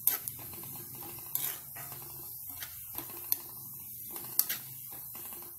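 Sliced onions frying in hot oil in a metal pan, with a steady sizzle, as a spatula stirs them fast, clinking and scraping against the pan several times. The onions are at the golden-brown stage and must be stirred constantly so they don't burn.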